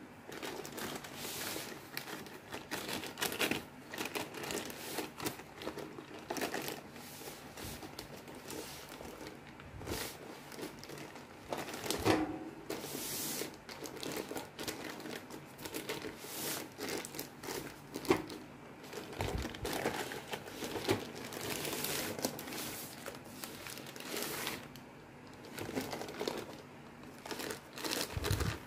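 Clear plastic wrapping crinkling and rustling as a bathroom scale sealed inside it is handled and lifted, in irregular bursts with a couple of sharper crackles partway through.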